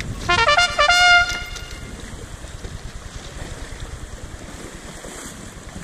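A short musical jingle, a quick run of notes stepping upward, in the first second or so. It is followed by a steady hiss of wind and surf.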